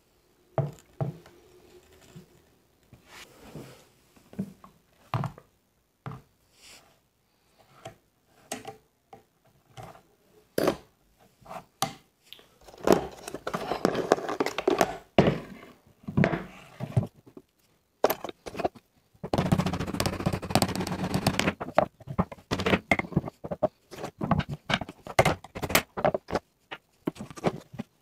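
Metal parts of a Gamo Shadow 1000 break-barrel air rifle being handled during disassembly: scattered clicks and knocks, with two longer spells of rattling, scraping metal, one about halfway through and another a few seconds later.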